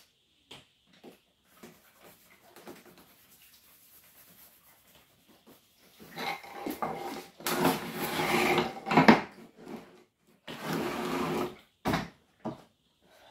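Wooden blanks with paper templates stuck on them being handled, slid and set down on a wooden workbench. Faint light clicks come first, then from about six seconds in three louder scraping, rustling slides of about a second each, and a sharp knock near the end.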